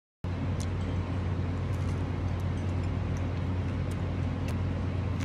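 A steady low droning hum, starting after a moment of silence, with a few faint clicks over it.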